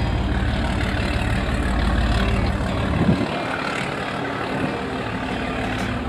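A fishing boat's diesel engine running with a low, even throb, dropping away about halfway through.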